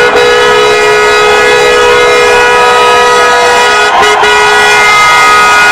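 A car horn held down in one long, loud, steady two-note blare, released very briefly twice about four seconds in and then held again, over crowd noise.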